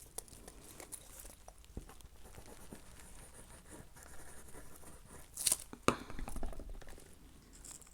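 Paper scraps being handled on a craft desk: faint rustling with a few small ticks, and a short louder crinkle of paper about five and a half seconds in, followed by a few smaller ones.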